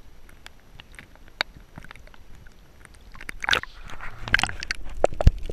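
Underwater reef sounds: scattered sharp crackling clicks, then two bursts of rushing noise about a second apart, and a low thump near the end.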